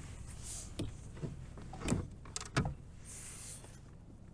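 Several short, hollow knocks with some rustling as a plastic fish-measuring board is handled against a pike and the kayak.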